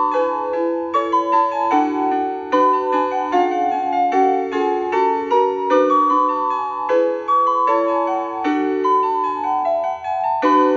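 Casio CPS-201 electronic keyboard played with both hands: a stepping melody over repeated, held chords.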